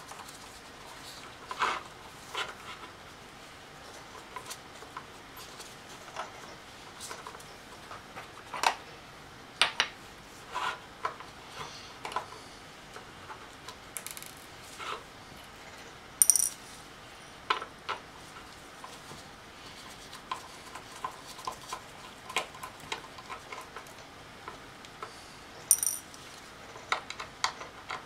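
Small screwdriver clicking and scraping on the tiny cover screws of a Fujitsu 2.5-inch SATA hard drive as they are undone, in scattered light clicks. Twice, about halfway through and near the end, a tiny screw drops into a small porcelain dish with a short bright ring.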